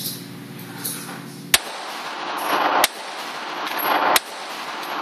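Three 9mm pistol shots from a Glock 17, fired just over a second apart in an indoor shooting range; the first shot is the loudest.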